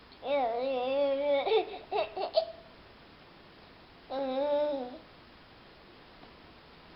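Young child babbling in a wavering, sing-song voice: one stretch of about a second near the start that breaks into a few short choppy sounds, then a shorter one about four seconds in.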